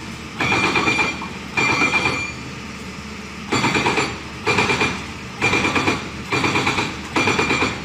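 Mechanical clattering in regular bursts, about one a second, each burst a quick run of knocks with a steady high ringing tone through it.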